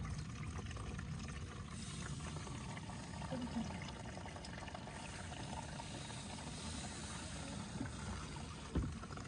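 Water pouring and trickling steadily into a live-fish tank, with a soft bump near the end.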